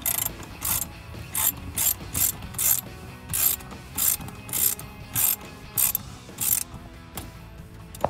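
Socket ratchet clicking in short bursts on its back-swings while loosening a worm-gear hose clamp on an intake tube. About a dozen bursts come roughly every half second and stop near the end.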